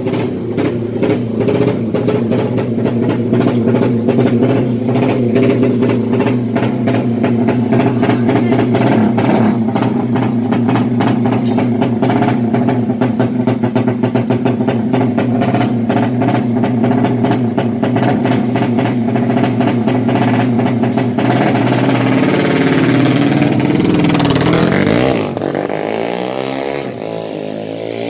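200cc drag-racing motorcycle engine running loud and steady with rapid crackling firing pulses. About 21 s in it is revved, and after a drop in level about 25 s in it climbs in pitch again and again as it pulls away through the gears.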